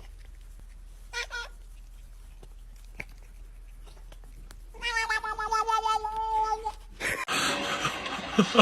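A cat meowing: a short meow about a second in, then a long, wavering, drawn-out meow lasting about two seconds. A noisy stretch follows near the end.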